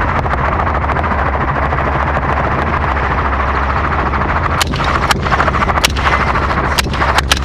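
Steady helicopter rotor and engine noise, with a string of about six gunshots from the gunners aboard starting a little past halfway, fired singly at uneven intervals.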